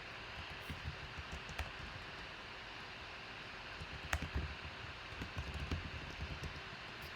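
Scattered light clicks and soft taps over a steady hiss, with one sharper click about four seconds in and a cluster of soft knocks after it.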